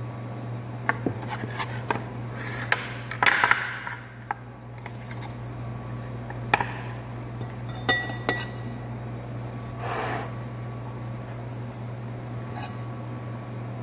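Scattered taps and clinks of kitchen dishes and utensils on a countertop, with short rustles as the sambusa pastry wrappers are folded and filled, over a steady low hum. A ringing clink comes twice about eight seconds in.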